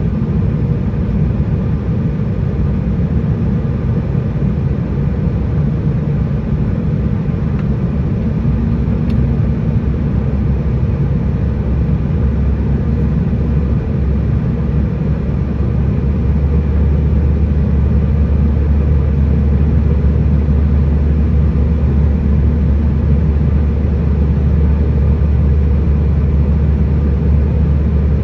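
Airliner cabin noise on the approach: a steady, loud low rumble of engines and airflow, its deepest part growing louder about twelve seconds in and again about sixteen seconds in.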